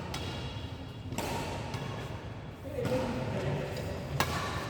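A badminton racket smacks a shuttlecock once, sharply, about four seconds in, over the low background noise of a sports hall.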